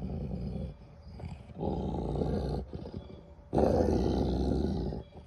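English Mastiff growling: three low, rumbling growls about a second each, the last the loudest. It is a resource-guarding warning over a deer leg, the dog's way of saying 'this is mine right now'.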